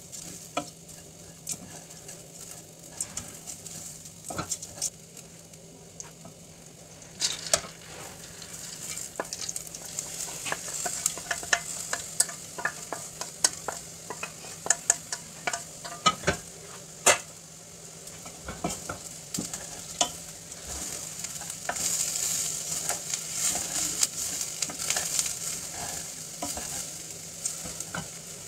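Vermicelli and rice sizzling in hot oil in a stainless steel pot while a wooden spoon stirs them, with many short scrapes and clicks of the spoon and grains against the pot. Partway through, lentils are tipped in from another pot, and the sizzle grows louder near the end.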